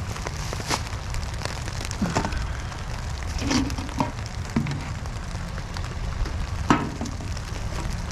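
Steady rain falling, with scattered knocks and clatters of items being handled, one sharper knock late on.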